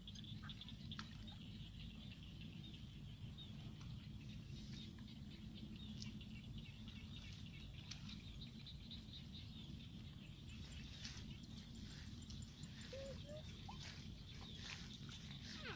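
Open rice-field ambience: a steady chorus of high chirping over a low rumble, with scattered light ticks and rustles of footsteps through wet grass. A few short squeaky calls come near the end.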